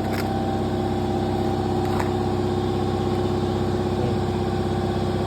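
Steady drone of a running motor, with two light clicks, one near the start and one about two seconds in.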